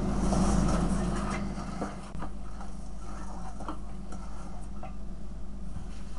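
Fingers mixing a flour and spice coating in a stainless steel bowl: soft rubbing and shuffling for the first couple of seconds, then scattered light taps and clicks, over a steady low hum.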